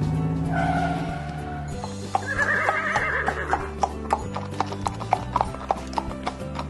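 A horse whinny about two seconds in, then quick clip-clop hoofbeats of a galloping horse, about four a second, over background music.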